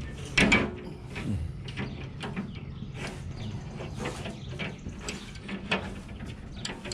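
Irregular light metallic clicks and clinks of hand tools working at the teeth of a 54-inch circular sawmill blade while its carbide inserts are changed. There is a louder knock about half a second in.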